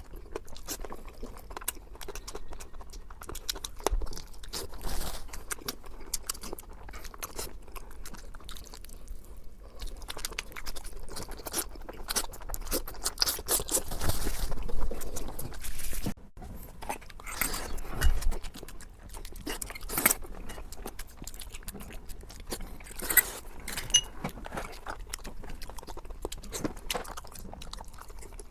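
Close-miked eating sounds: a person chewing and biting into seafood, with wet smacking and irregular crunchy crackles. It grows busier and louder for a few seconds mid-way, with a couple of sharp cracks after that.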